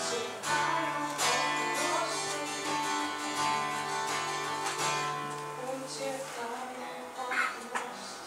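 Acoustic guitar playing an instrumental passage: chords strummed with several strong strokes in the first two seconds, then ringing on more quietly.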